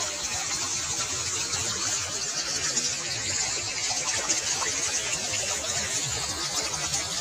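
Shallow water running and splashing over the edge of a flooded crossing, a steady rushing hiss.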